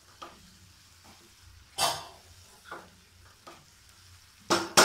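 A wooden spatula stirs and scrapes a thick tomato-onion masala frying in a non-stick pan, under a faint sizzle. Several strokes stand out; the loudest comes about two seconds in, and two more come close together near the end.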